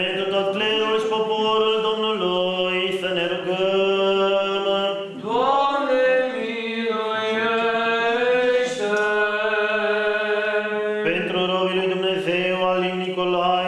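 Orthodox church chant: a melismatic sung liturgical response with long held notes over a steady low drone.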